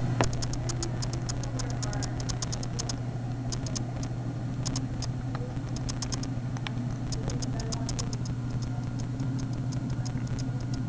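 Baby hiccuping now and then over a steady low hum, with a fast run of faint high ticks.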